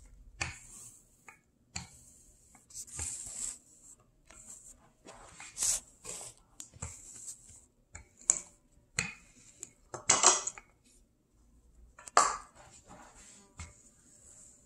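Wooden rolling pin rolling out pastry dough on a granite countertop: irregular knocks and clacks, mixed with short rubbing strokes.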